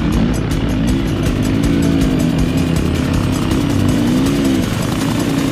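Two-stroke 300 dirt bike engine being ridden, the revs rising and falling several times as the throttle is worked, easing off near the end.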